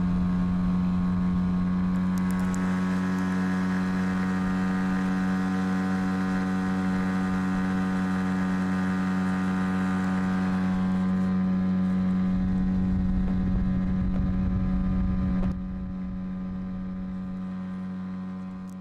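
Boat motor running at a steady speed, one even engine note with no change in pitch; it drops in level about fifteen seconds in and cuts off at the end.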